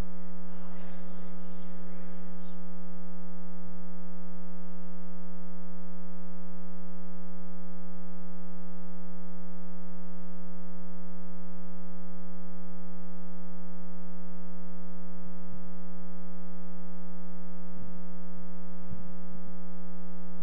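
Loud, steady electrical mains hum with a buzz, unchanging throughout; a few faint knocks sound in the last few seconds.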